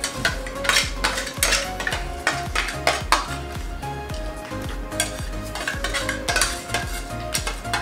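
Metal spoons clinking and scraping against stainless-steel plates as two people scoop and eat dahi puri quickly, many sharp irregular clicks. Background music with a steady bass runs underneath.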